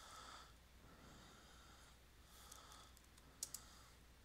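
Near silence, with soft breathing close to the microphone and a quick pair of computer keyboard key presses about three and a half seconds in.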